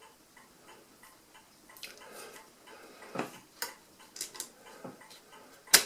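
Small metal clicks and ticks from an Addo Multo mechanical calculator's number wheels and setting levers being moved by hand to line them up. The clicks come irregularly, with a faint, even ticking underneath, and end in one sharp, loud click near the end as a part snaps into place.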